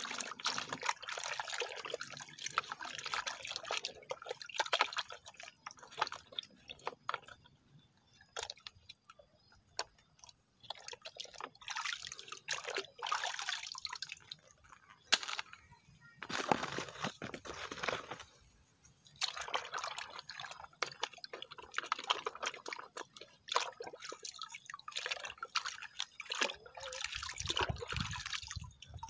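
Water splashing and dripping as muddy plastic toy cars are washed and rinsed by hand, in uneven spells with short pauses.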